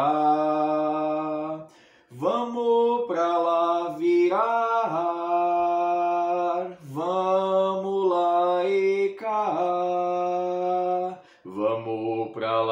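A man singing an Umbanda ponto for Oxalá unaccompanied, holding long notes in slow phrases with short pauses for breath between them.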